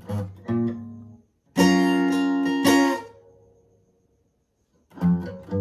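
Guitar tuned a half step down playing part of a chord progression: a few short picked notes, then a full chord strummed twice and let ring until it fades out, with picked notes starting again near the end.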